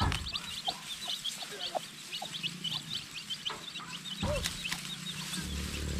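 Birds peeping in rapid high chirps, several a second, with the rustle and snap of lemongrass stalks being pulled from a clump.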